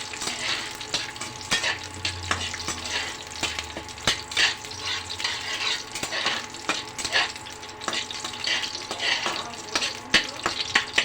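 Whole spices (dried red chillies, bay leaf and whole garam masala) sizzling in hot mustard oil in a kadai, stirred with a spatula in repeated scraping strokes against the pan: the tempering (phoron) stage.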